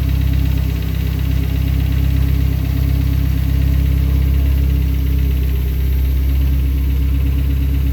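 Honda K24 inline-four engine idling steadily with timing chain noise, which persists although the chain tensioner has been replaced with an aftermarket Hybrid Racing unit.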